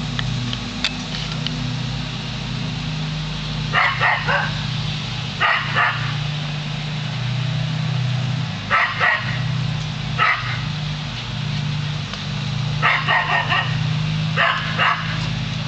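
Border collie giving alert barks at a hot air balloon overhead, in short runs of two or three barks every second or two. A steady low hum runs underneath.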